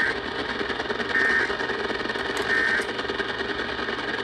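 Emergency Alert System end-of-message data signal: three short two-tone warbling data bursts, each about a third of a second, a little over a second apart, over a steady hiss.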